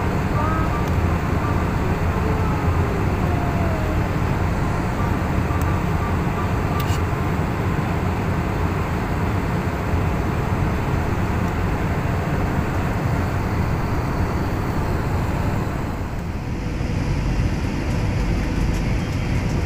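Steady cabin noise of an Airbus A320neo in descent: a low engine rumble and rushing airflow, heard from inside the cabin. About sixteen seconds in, the sound dips briefly and turns duller as the higher hiss falls away.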